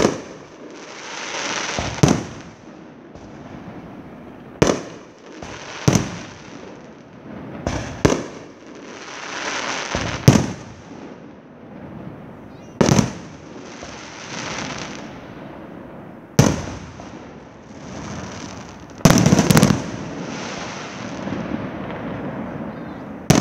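Aerial fireworks bursting with loud bangs every two to four seconds, each followed by a second or two of crackling hiss; later, a quick volley of several bangs in close succession.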